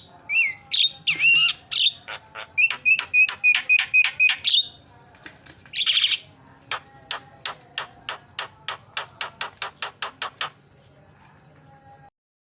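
Javan myna calling: a quick jumble of whistled notes and a string of even whistles. About six seconds in comes a short harsh rasp, then a rapid run of sharp clicks, about five a second, for some four seconds.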